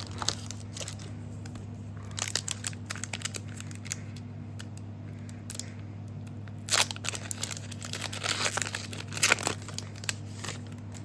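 Foil booster pack of trading cards being torn open and crinkled, in several separate bursts of crackling.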